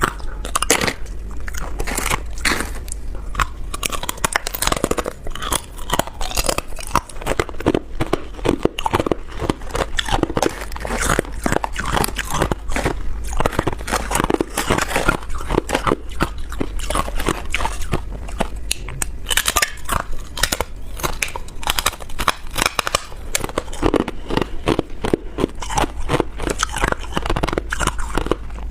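Ice being bitten and chewed close to the microphone: a continuous run of irregular crunches and crackles, over a steady low hum.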